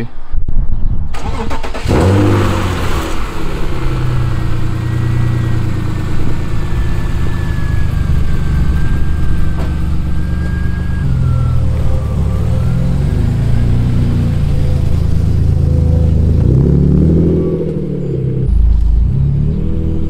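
BMW E36 M3's straight-six engine starting about two seconds in, then running at idle, with its pitch rising and falling near the end as the car pulls away.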